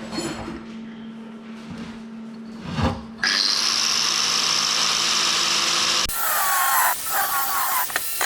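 A power tool starts suddenly about three seconds in and runs steadily with a loud, high-pitched whir. Its sound changes abruptly about six seconds in.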